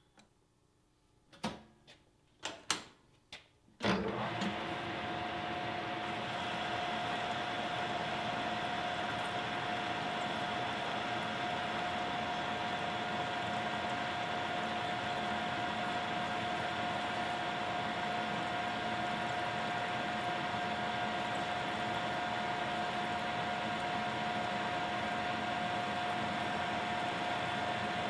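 A few sharp metal clanks as a chuck key works the lathe chuck, then about four seconds in a metal lathe starts and runs on steadily, its motor and gearing making a constant whine.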